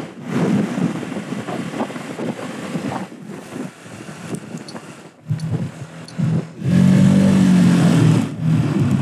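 50cc moped being ridden: wind rush and engine noise. About five seconds in this gives way to the moped's small engine humming steadily at low speed, loudest for a second or two near the end.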